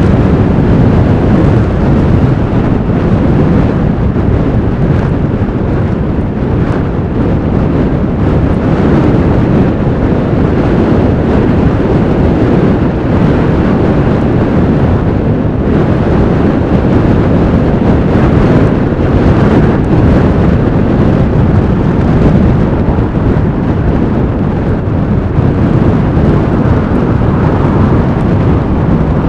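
Strong blizzard wind blowing over the microphone: a loud, steady, low rumble of noise.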